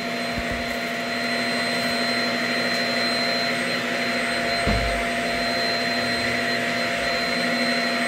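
Shark Rocket self-cleaning stick vacuum running steadily: a constant motor hum with a high whine over a rush of airflow. There is a brief low bump about halfway through.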